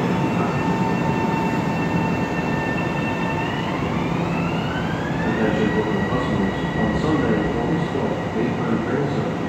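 Long Island Rail Road M7 electric multiple-unit train pulling out and accelerating away, its propulsion whine rising in pitch for about two seconds a few seconds in, then holding steady, over the rumble of the cars on the rails.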